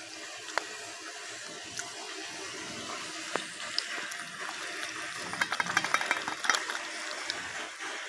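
Bird gum boiling in a tin can over an open wood fire: a steady bubbling hiss with scattered pops and crackles, which come thicker for a couple of seconds past the middle.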